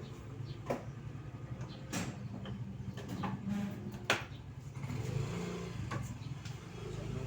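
A steady low engine hum, with about six sharp plastic clicks and knocks spread through it as the car's front bumper is pulled loose; the loudest knock comes about four seconds in.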